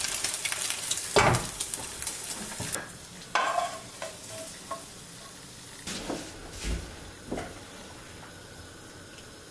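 Pieces of mutton tail fat sizzling and crackling in a frying pan, with a wooden spoon stirring and knocking against the pan. The sizzling dies away about three seconds in, leaving a few separate knocks and scrapes of the spoon.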